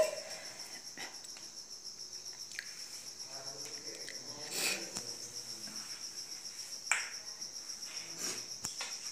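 A cricket chirping in a steady, fast-pulsing high trill, with a few light knocks in between.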